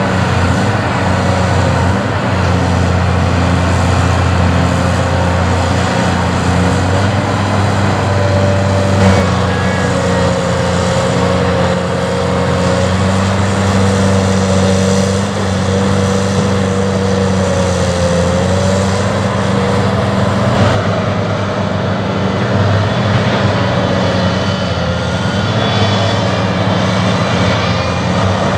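Heavy diesel engine of a Caterpillar construction machine running steadily at a constant level, with a thinner whine above the engine note that wavers slightly in pitch.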